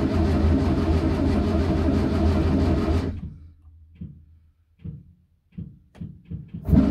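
A 1955 Morris Oxford Series II's four-cylinder engine running during a cold start stalls about three seconds in. A handful of short, scattered sounds follow, and near the end the engine catches again and runs.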